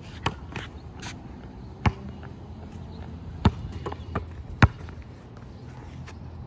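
Basketball bouncing on a hard outdoor court: a handful of sharp thuds, the loudest about a second and a half apart, with weaker taps between, over a steady low background rumble.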